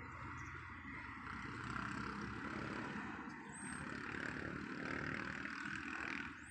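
Steady outdoor background noise: a low rumble under an even hiss, with no distinct gull call standing out.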